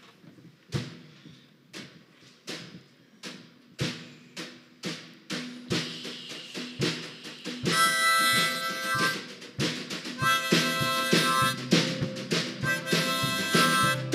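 Drum strokes start slowly and come faster and faster, getting louder; about eight seconds in, a harmonica chord comes in over them and the bluegrass band plays on.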